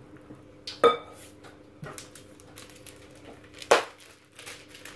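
A silicone whisk stirring batter in a glass mixing bowl: a run of small taps and scrapes against the glass, with two louder clinks on the bowl about a second in and near four seconds, the first ringing briefly. A faint steady hum runs underneath.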